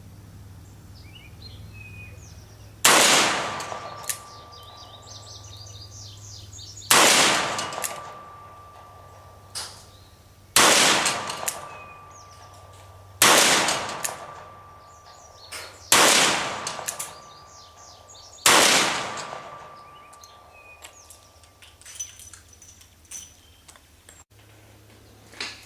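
Six gunshots a few seconds apart, each followed by a fading echo rolling off across the range. Birds chirp faintly between the shots.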